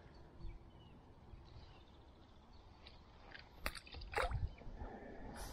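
Faint handling noise from hands working a fishing hook and line: a few short rustles and clicks about three and a half to four and a half seconds in, over a low steady rumble.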